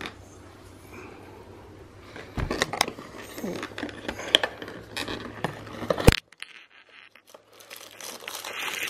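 Hands handling packaging in a cardboard box: scattered rustling, scraping and plastic crinkling with short clicks, and a sharp click about six seconds in, followed by a brief near-silent pause.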